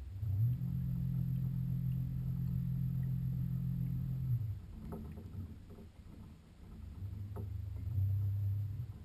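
Low hum of a small motor heard underwater, starting with a quick rise in pitch and running steadily for about four seconds. It comes back a few seconds later, steps up in pitch and then stops. Two faint clicks fall in the gap.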